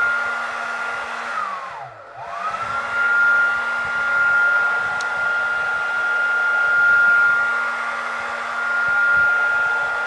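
2200-watt AEG HT 5684 hair dryer running on its second fan speed: a steady rush of air with a high motor whine. About two seconds in, the motor briefly winds down and spins back up to the same speed.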